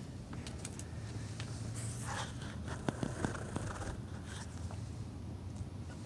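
Deer feeding at close range: scraping, rustling and rasping, with short sharp clicks of muzzles in the feed and hooves on hard ground, a tight cluster of clicks about three seconds in, over a steady low hum.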